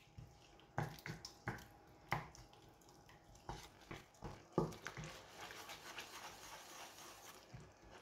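A utensil scraping and knocking in a frying pan as a garlic and cream-cheese sauce is stirred: half a dozen quiet, scattered strokes, then a faint, steady wet crackle in the second half.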